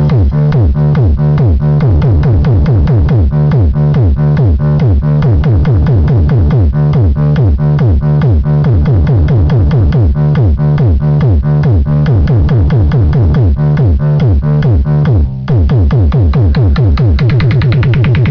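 Loud electronic dance music with a fast, steady beat, heavy bass and repeated falling synth notes, with a short break about fifteen seconds in.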